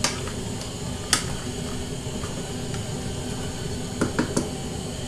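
Wooden spoon stirring a chunky meat-and-vegetable stew in an aluminium pot, knocking against the pot: a sharp click at the start, another about a second in, and three quick knocks about four seconds in, over a steady background hum.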